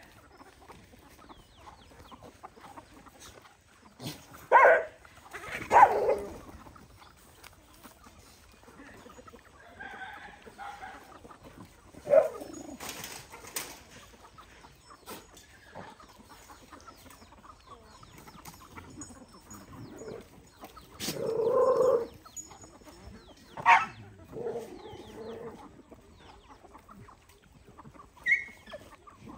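Chickens clucking in short, scattered calls, with a few louder calls spread among them over a quiet background.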